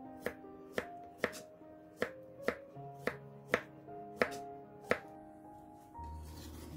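Kitchen knife slicing a cucumber into thick diagonal pieces on a wooden cutting board: sharp knocks of the blade meeting the board, about nine at roughly two a second, stopping about five seconds in.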